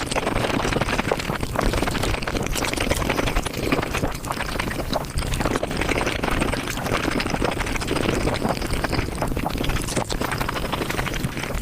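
Close-miked mukbang eating sounds of chicken, beef, rice and naan, played back at five times speed: a dense, rapid, unbroken stream of chewing and mouth clicks.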